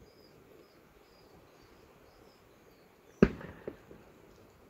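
Faint night ambience of sea wash and high, repeated chirping, broken about three seconds in by a single sharp gunshot with an echoing tail and a smaller crack about half a second after it: hunters shooting in the woods ashore.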